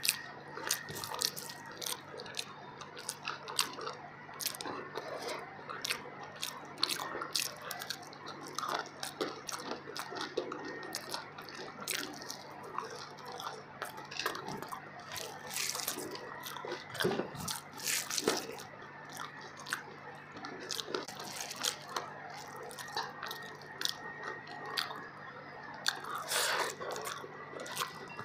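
A person chewing a mouthful of fish biryani, with irregular wet smacking and clicking mouth sounds. A hand squishes and scoops the rice off a banana leaf.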